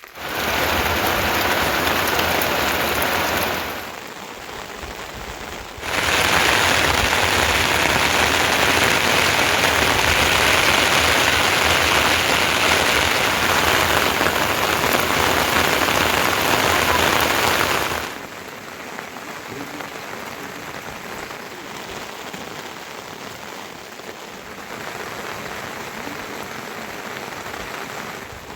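Heavy rain falling, a dense steady hiss. It is loud for the first few seconds, drops off suddenly, comes back loud for about twelve seconds, then drops to a softer patter.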